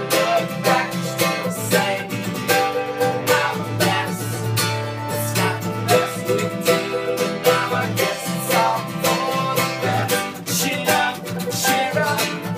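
Live acoustic country-bluegrass song: a strummed acoustic guitar and mandolin, with two men singing.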